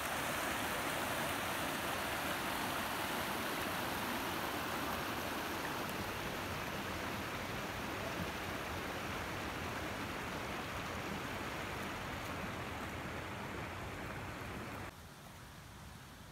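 Mountain stream rushing over rocks: a steady hiss of running water that cuts off suddenly near the end.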